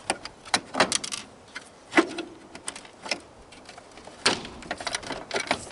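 Irregular clicks and knocks of plastic and metal washing-machine parts being handled and pried during dismantling, with a louder knock about two seconds in and another a little past four seconds.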